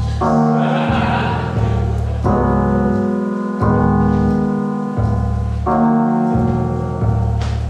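Rap backing instrumental of sustained keyboard chords over a deep bass line, with no vocals. The chords change every couple of seconds.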